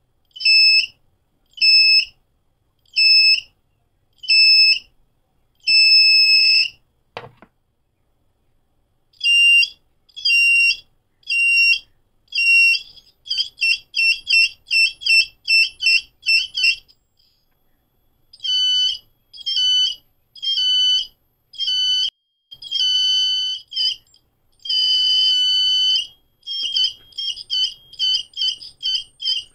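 Piezo buzzer on a simple BC547 metal-detector circuit beeping in short, high-pitched pulses as metal objects come near its search coil. The pulses come about once a second, then speed up to about three a second, stop briefly twice, and include a few longer beeps.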